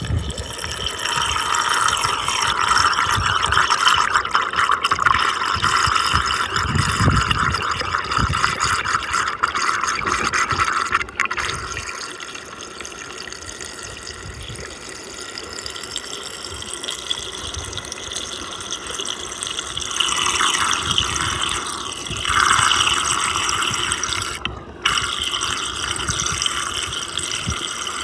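Muddy water swirling and draining down a fast whirlpool vortex: a continuous rushing, gurgling water noise, louder for the first ten seconds and again briefly near the end.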